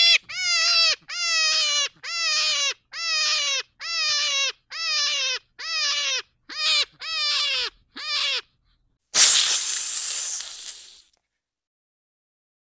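An animal's loud call repeated about ten times, roughly once a second, each call short with a slight fall in pitch. About nine seconds in comes a hiss of about two seconds, from a snake.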